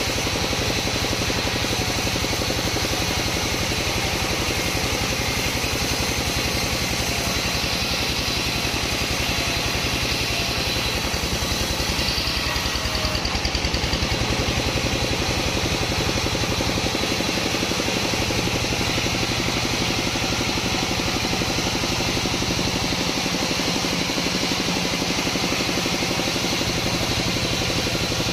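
Engine-driven sawmill machinery running steadily, a continuous engine drone with saw noise over it; the higher hiss swells slightly about halfway through.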